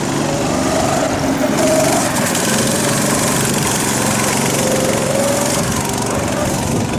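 Youth slalom kart's small engine running and revving, its pitch rising and falling repeatedly as the throttle opens and closes through the cone course.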